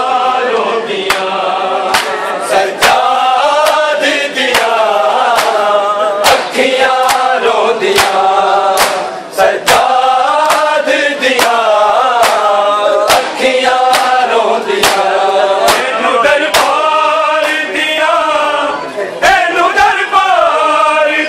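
Men's voices chanting a Punjabi noha, a mourning lament sung without instruments, with sharp rhythmic strikes about once a second from hands beating on chests (matam).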